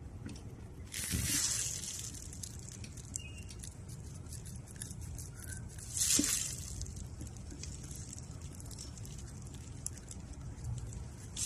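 Metal callus scraper blade shaving hard dead skin off a cracked heel: scratchy scraping strokes, with two louder scrapes about a second in and about six seconds in.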